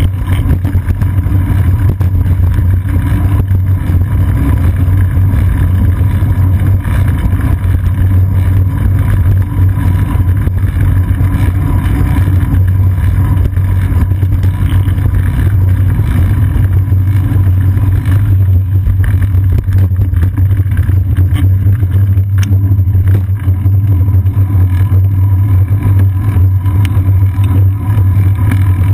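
Loud, steady low rumble picked up by a GoPro Hero 2 mounted on a bicycle's seat post while riding: road vibration and wind on the camera, with street traffic behind.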